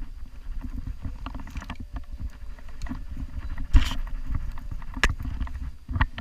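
Wind buffeting a body-worn camera's microphone as a low, uneven rumble, with a few sharp knocks from the paraglider harness, risers and carabiners close to the microphone, the loudest a little past halfway.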